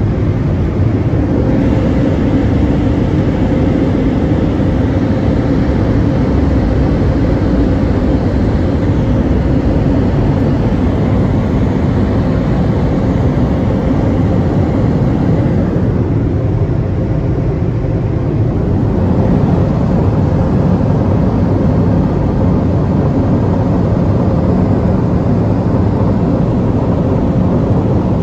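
Gantry-mounted air dryers of a WashWorld Razor Edge touchless car wash running, a loud steady rush of blown air over a low hum, heard from inside the car. The rush eases briefly about halfway through, then picks up again.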